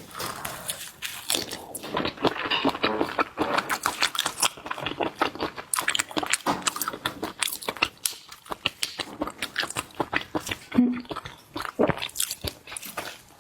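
Close-miked chewing and crunching of peeled shrimp being eaten, a dense run of quick crunches and wet smacks.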